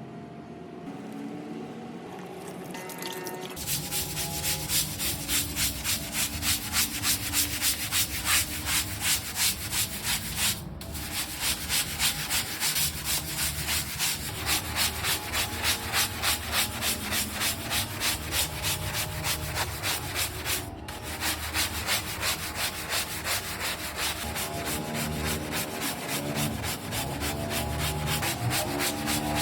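A brush scrubbing a hard outdoor floor in steady back-and-forth strokes, about two a second, starting a few seconds in and pausing briefly twice.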